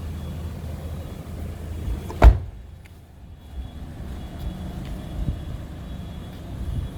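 A car door on a Toyota Corolla sedan shut once with a single solid thud about two seconds in, over a steady low outdoor rumble.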